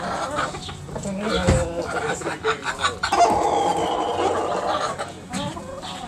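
Backyard chickens clucking, with scattered short calls and scratching ticks, and one long, louder call lasting about two seconds from about halfway through.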